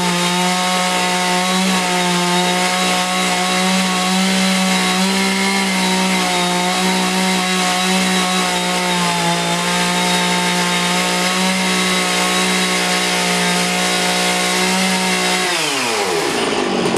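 Stihl 660 two-stroke chainsaw on a chainsaw mill, running flat out as it rips lengthwise through a beech log, holding a steady high engine pitch. Near the end the throttle is released and the revs fall quickly.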